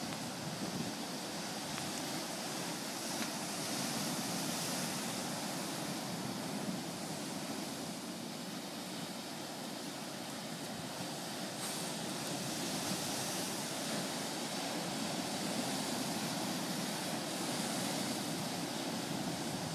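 Ocean surf: a steady wash of waves breaking.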